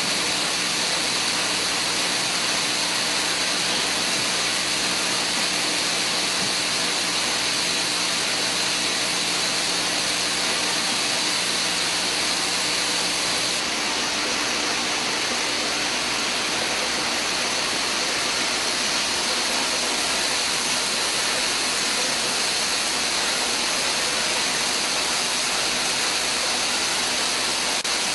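Syringe assembly machine running: a steady, even rushing noise with faint steady hums underneath. The sound changes slightly about fourteen seconds in.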